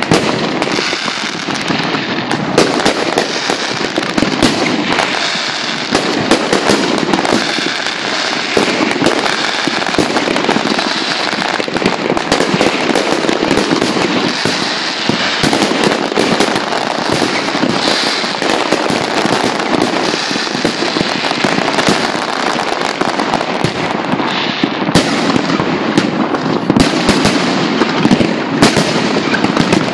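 Large aerial fireworks display: a dense, unbroken barrage of overlapping shell bursts and bangs, many at once, with no pause.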